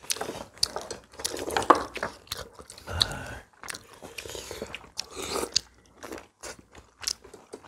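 Several people chewing and eating, with irregular clicks of chopsticks and spoons against ceramic bowls and plates.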